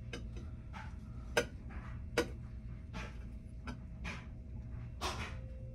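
Irregular light clicks and taps, about ten of them, two sharper ones in the first half and a short rustle near the end, over a steady low rumble.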